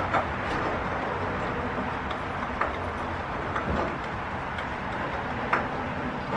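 A dog licking at a small plastic tub, with scattered soft clicks and taps of its tongue and teeth on the container over a steady background hiss.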